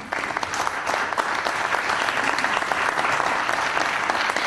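Audience applauding steadily, many people clapping at once, at the end of a lecture.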